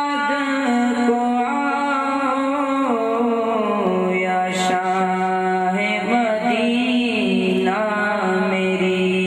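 A young man's voice singing an Urdu naat through a microphone, drawing out long held vowel notes that step down in pitch and then climb again in a melismatic run.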